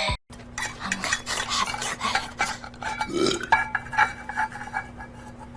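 A rapid, irregular run of clicks and clinks, like utensils knocking against dishes, over a faint steady hum.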